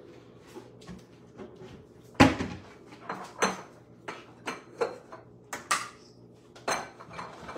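Kitchen clatter: a string of sharp knocks and clinks, about ten at uneven intervals, as pots, dishes and cupboard doors are handled. The loudest knock comes about two seconds in.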